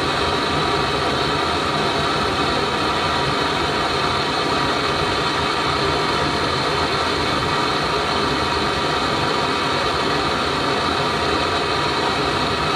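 Handheld gas blowtorch burning steadily with a constant hiss while it heats a bolt.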